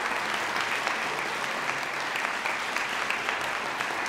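Concert audience applauding steadily, a dense, even clapping.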